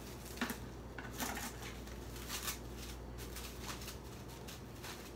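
Plastic cling wrap crinkling in a few short rustles as a portion of sticky rice is wrapped and pressed into a ball by hand.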